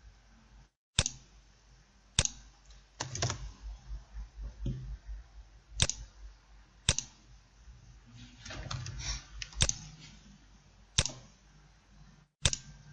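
Computer mouse and keyboard clicks: single sharp clicks every second or two, with a few short runs of clicks together.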